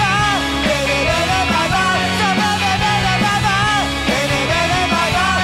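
Garage rock song from a full band: a melodic lead line that slides and bends in pitch over a steady beat of drums and bass.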